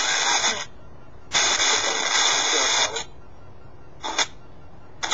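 SONO X10 Spirit Box Pro app scanning on a smartphone, giving out bursts of hissing static through the phone's speaker. One burst cuts off just under a second in, a longer one of about a second and a half follows, a brief one comes about four seconds in, and another starts near the end.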